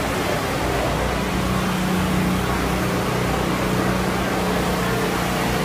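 Steady, loud din of a packed street festival: an even wash of noise with a low steady hum under it and no single sound standing out.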